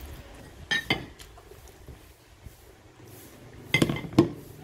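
Close-up eating sounds at a table, with two short clusters of sharp clicks or smacks, one about a second in and a louder one near the end.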